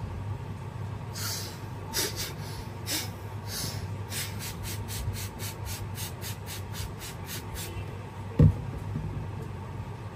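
Trigger spray bottle misting water onto hair: a run of short hissing spritzes, a few spaced apart at first, then a quick regular train of about three a second that stops just before 8 s. A single dull thump follows near the end.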